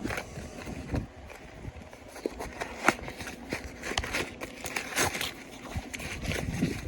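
Loose steel bearings and drive parts being handled and rummaged through, giving scattered irregular clinks and knocks.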